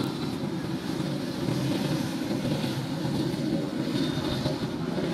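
Two-seat Air Tractor's engine and propeller running steadily as the plane taxis, a continuous drone with a faint high whine.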